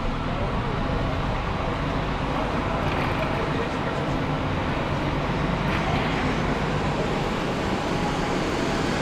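Steady road noise: the low rumble and tyre hiss of a moving vehicle, even in level throughout.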